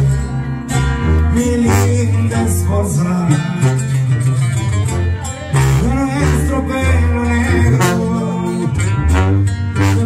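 Sierreño music: plucked acoustic guitars over a strong tuba bass line, with singing.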